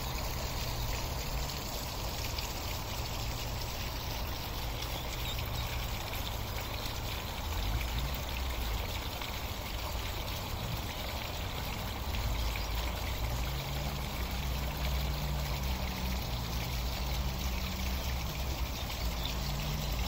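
Water trickling and flowing steadily over stones, with a low wavering rumble underneath that grows a little louder about halfway through.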